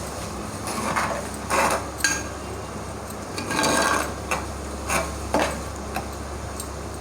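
A utensil scraping and tapping against a clay cooking pot, in a string of short irregular scrapes and knocks, the longest about three and a half seconds in, over a low steady hum.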